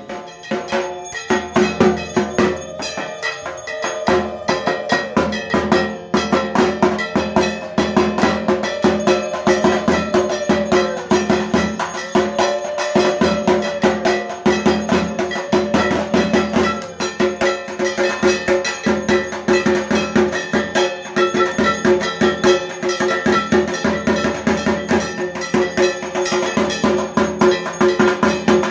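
Dhak, the Bengali barrel drum, beaten fast and steadily with sticks, with metal percussion ringing along at each beat in a dense, continuous rhythm.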